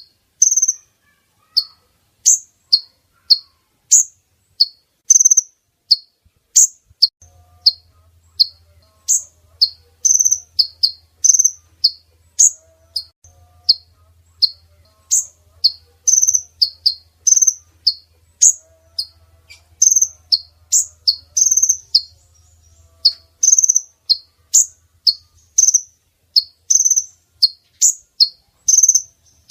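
Female kolibri ninja sunbird calling: a steady run of short, sharp, high chirps, about two a second, played as a lure call to draw in males.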